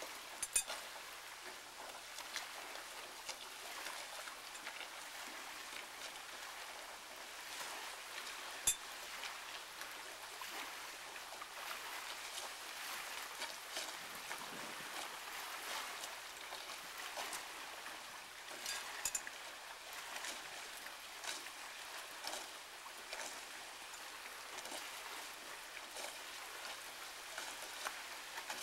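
Chicken pieces sizzling and crackling on a small grill grate: a steady hiss with many short crackles, and a few sharper clicks as pieces are set on the grate.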